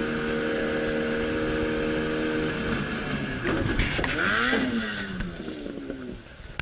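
Outboard motor on a small boat running steadily at high speed. About three seconds in, its note breaks up and wavers up and down as the motor tears loose from the transom and falls off, and the engine sound fades away near the end.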